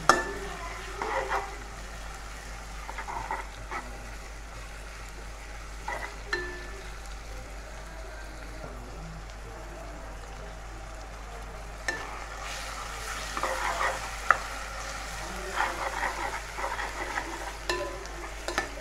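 Sliced onions and garlic paste sizzling in oil in a non-stick pan, with a plastic spatula stirring and scraping them in spells, busiest in the last several seconds.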